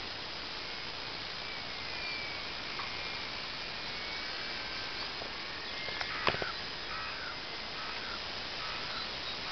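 Steady outdoor hiss with faint, high chirps, and one sharp click about six seconds in.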